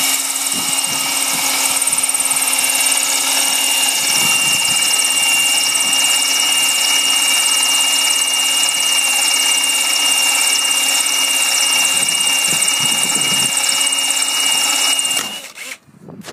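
Cordless drill running at slow speed, turning a vacuum-brazed diamond core bit through a granite slab with water in a suction ring. A steady motor whine with a high grinding tone, which stops suddenly about fifteen seconds in as the bit is lifted out.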